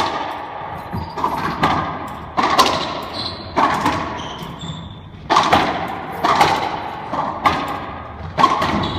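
Racquetball rally: sharp cracks of the ball struck by racquets and hitting the court walls, each ringing in the enclosed court. The hits come about once a second, often in quick pairs, and the loudest is right at the start.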